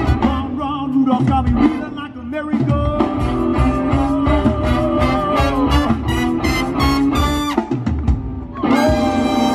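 Live swing band playing: a male singer over upright bass, drum kit and trumpet. The bass and drums drop out briefly about two seconds in, and again for about a second near the end, before the full band comes back in.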